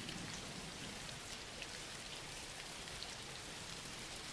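Soft, steady rain ambience: an even patter with scattered faint drop ticks.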